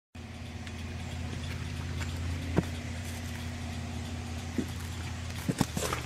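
Steady low electrical hum from a Pennsylvania Railroad-era signal relay hut, with one sharp relay click about halfway through and a fainter one later. A few quick knocks come near the end.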